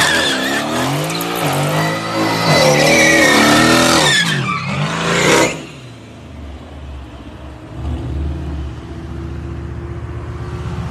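Mercedes-AMG sedan doing donuts: the engine revs up and down while the rear tyres squeal against the pavement. About five and a half seconds in, the revs cut off and the engine falls back to a quieter, steady low running sound.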